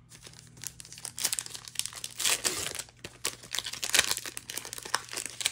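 Foil Magic: The Gathering booster pack wrapper crinkling and tearing as it is handled and opened, in irregular crackles that are loudest about two and four seconds in.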